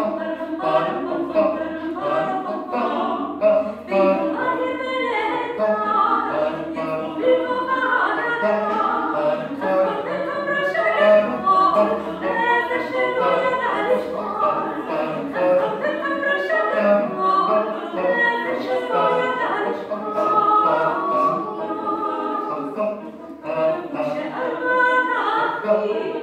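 Mixed vocal quartet of two women and two men singing a cappella, several voice parts sounding together without any instruments.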